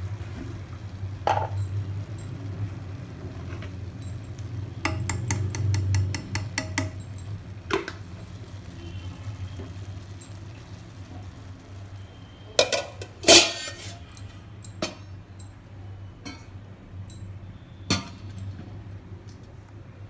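Cooking utensils clinking and knocking against a nonstick pan of rice as it is mixed, over a steady low hum. There is a quick run of light taps about five seconds in and a loud metal clank about thirteen seconds in.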